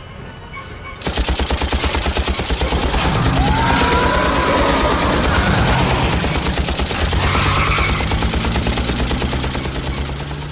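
Sustained rapid automatic gunfire, a dense stream of shots that starts abruptly about a second in and keeps up until it tails off near the end.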